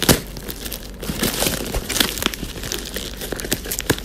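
Paper gift wrapping crinkling and tearing as a wrapped package is cut with a knife and pulled open by hand: a run of sharp crackles, the loudest right at the start.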